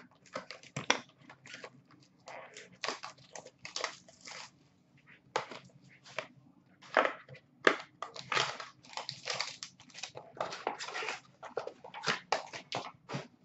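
Plastic shrink-wrap being cut and torn off a sealed trading-card box, crinkling in irregular bursts, with the cardboard box and packs being handled.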